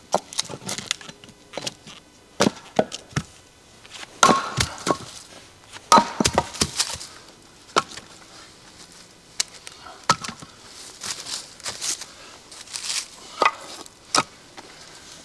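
Go-devil splitting maul striking firewood blocks, a string of sharp, irregular wooden knocks and cracks as the wood splits and the pieces clatter down.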